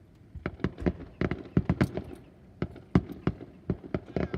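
Fireworks display bursting: a rapid, irregular string of sharp bangs, several a second.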